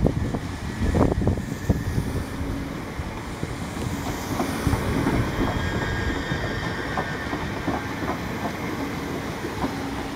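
Class 377/5 Electrostar electric multiple unit running past along the platform, a steady rumble with its wheels knocking over rail joints.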